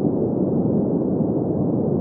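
Steady sleep noise, a deep, even hiss with little above the middle range and no high end, typical of green noise made for sleeping.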